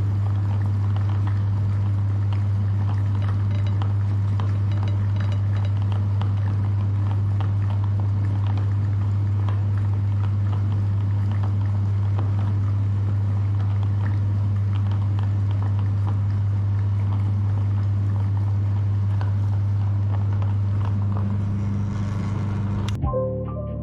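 Electric meat grinder running steadily with a deep, even motor hum and light crackling as it grinds ice cream. The hum cuts off about a second before the end, and music starts.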